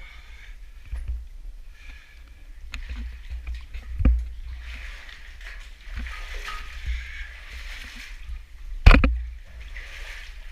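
Water sloshing and splashing as a caver moves through a cave stream, with sharp knocks, the loudest about nine seconds in and another about four seconds in.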